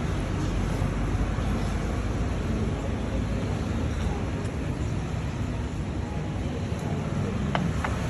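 Steady noisy background with a strong low rumble, and two faint brief ticks near the end.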